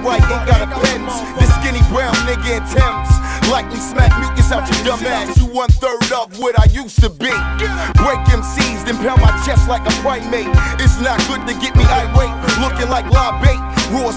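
Boom-bap hip hop track with a rapper delivering a verse over heavy kick drums and bass. Near the middle the drums and bass drop out for about two seconds, then the beat comes back in.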